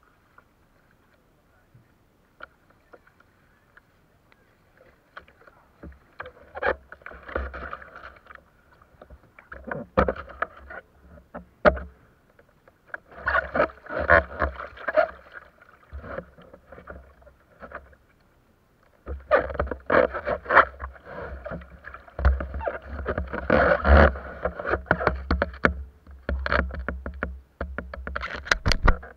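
Kayak paddle strokes, the blade dipping and splashing with water dripping off it, coming in bunches after a few quiet seconds. A low rumble runs underneath through the second half.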